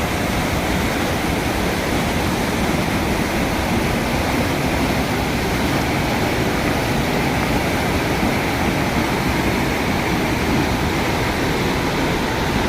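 Waterfall pouring: a loud, steady rush of falling water with no break.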